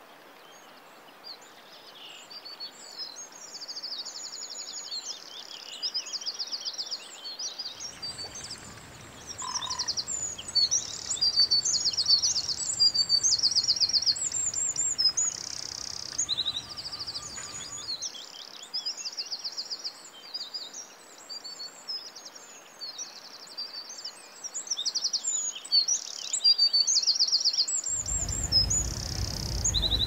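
Several songbirds singing at once: high chirps and whistles over and over, with quick rattling trills repeating every second or two.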